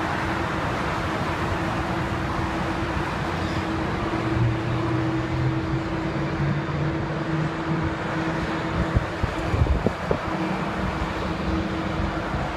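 Steady din of road traffic and a taxiing Boeing 787's jet engines at idle, with a constant hum and a low drone that swells for a few seconds midway. A few dull thumps hit the microphone about nine to ten seconds in.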